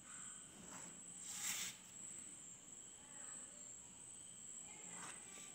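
Brief rustle and scrape of a plastic ruler and paper being moved on a tabletop about a second and a half in, with a fainter one near the end, over a steady faint high-pitched tone.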